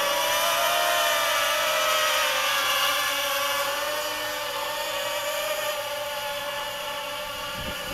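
Mini hexacopter's six brushless motors and carbon-fibre props hovering in GPS position hold: a steady, high whine of several tones together that wavers slightly in pitch and fades a little toward the end.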